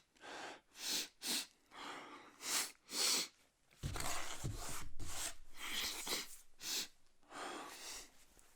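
A man sniffing and breathing hard through a nose stung by snorted ground black pepper, straining for a sneeze that has not yet come: several short sharp sniffs, then about three seconds of louder, rougher breathing, then a few more sniffs.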